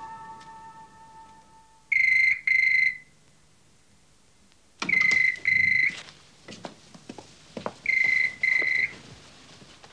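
A telephone ringing in the British double-ring pattern: three double rings about three seconds apart, with a few soft knocks between them. A held music chord fades out before the first ring.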